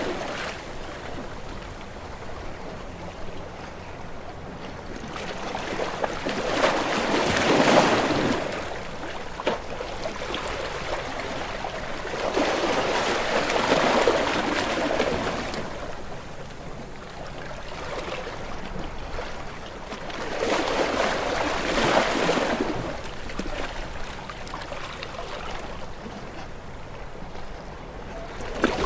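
Sea waves surging in and washing back, four swells of rushing surf that rise and fade about every seven seconds.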